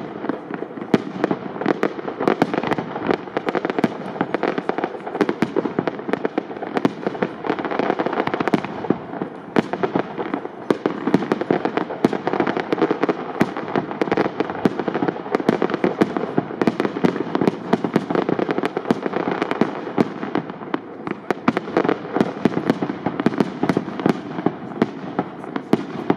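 Aerial fireworks shells, up to 75 mm calibre, bursting in rapid succession: many sharp bangs over continuous dense crackling, with no pause.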